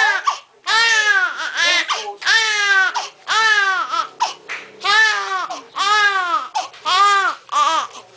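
A three-day-old newborn baby crying: a series of about eight high-pitched wails, each roughly a second long, rising and then falling off, with short gasping pauses between them.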